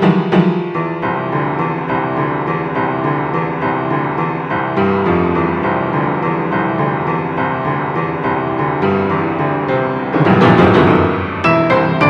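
A dark-sounding ringtone melody of steady pitched notes, growing fuller and louder about ten seconds in.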